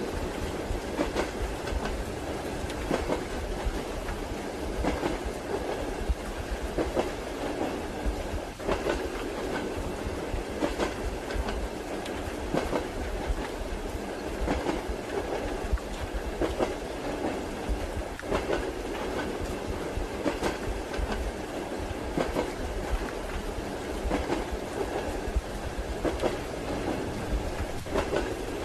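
Railway carriage rolling at steady speed: a continuous low rumble with the wheels clacking over rail joints about every two seconds, often as a quick double knock.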